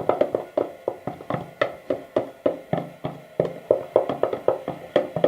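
A spoon stirring baking soda in a bowl, clinking and tapping against the bowl's side about two to four times a second, each tap ringing briefly.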